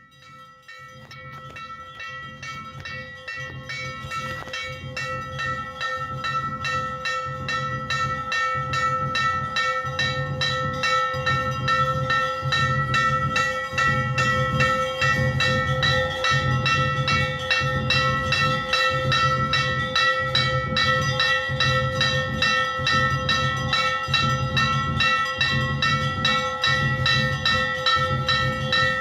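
Bells ringing rapidly with a steady low drum-like beat a little over once a second, fading in and growing louder over the first dozen seconds.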